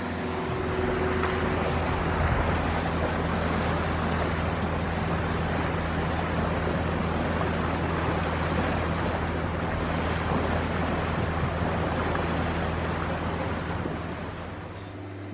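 Sailboat under way in choppy water: wind and water rushing past the hull, with wind buffeting the microphone, over a steady low hum from the boat's engine. The rush eases off near the end.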